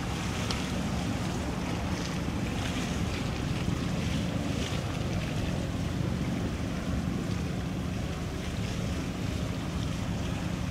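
Wind buffeting the microphone over small waves lapping on the water, with a steady low drone from the passing tow.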